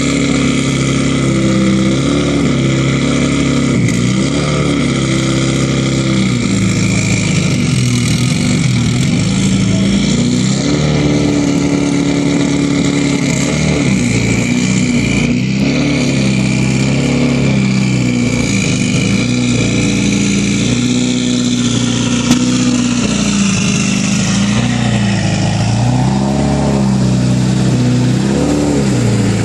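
Subaru Rally Team USA Impreza rally car's turbocharged flat-four engine running at a lumpy idle, with repeated throttle blips that make the revs rise and fall.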